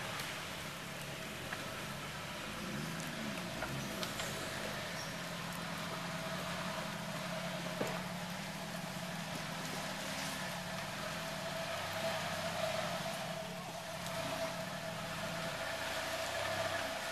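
Lifted Toyota pickup's engine running steadily at low revs, its pitch shifting a little as the truck crawls over rocks, with a few faint knocks.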